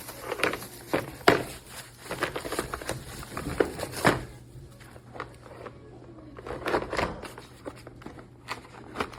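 Irregular sharp clicks and knocks over a steady low hum.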